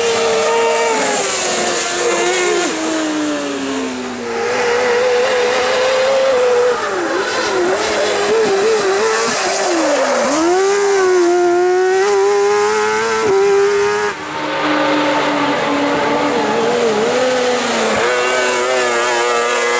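Motorcycle engine of a kart-cross racing buggy running at high revs under hard throttle, its pitch climbing through the gears and dropping sharply at each shift or lift, several times over.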